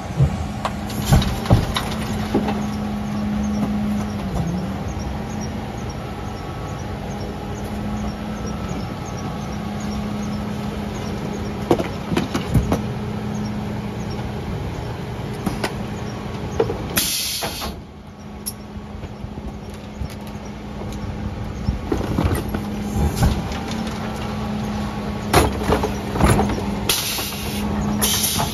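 Mercedes Econic refuse truck running at the kerb with its Faun Variopress compaction body working, giving a steady hum with knocks and clanks as the press draws in and crushes a mattress. Short hissing bursts come about 17 seconds in and near the end, where a Zoeller lifter is tipping wheelie bins.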